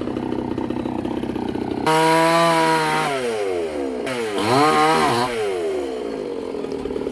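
Chainsaw idling, then revved sharply about two seconds in. Its pitch holds, then slides down, climbs and falls a second time, and settles back to idle near the end.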